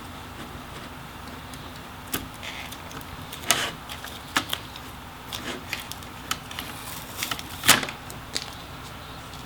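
Scattered small clicks and taps of tools and parts handled on a laptop's internals, with two louder knocks, one about three and a half seconds in and one near the end.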